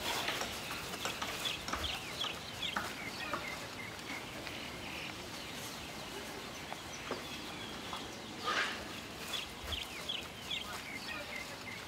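Birds chirping in short, scattered calls, with one brief louder animal call about eight and a half seconds in.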